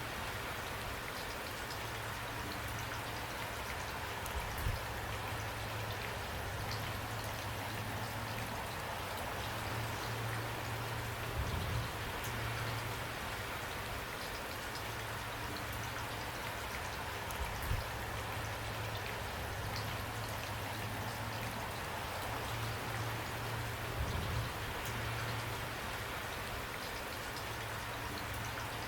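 Steady rain: an even hiss with many individual drops ticking, and a slightly louder drop or knock every several seconds.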